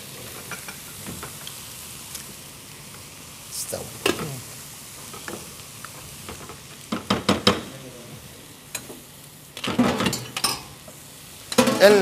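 A pan of sliced onions frying with a steady sizzle, while a spoon knocks and scrapes against the pots in a few short clusters.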